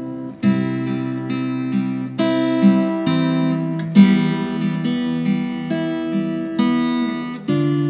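Acoustic guitar strumming chords, with new strokes about every half second to a second, in an instrumental passage between a song's sung lines.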